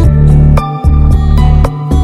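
Background music: an instrumental track with a heavy bass line and a pulse that dips about once a second.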